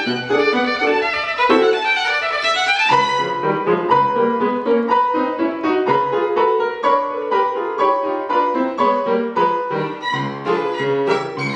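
Violin playing a fast passage of short bowed notes, with a quick rising run about three seconds in.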